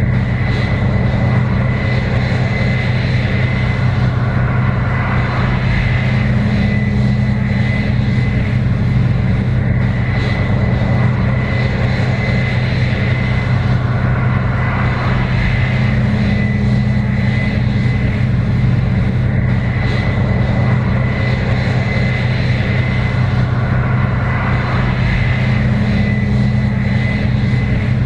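Case IH 7120 Axial-Flow combine running steadily while harvesting corn: a constant engine drone with a thin high whine from the machinery, swelling slightly about every ten seconds.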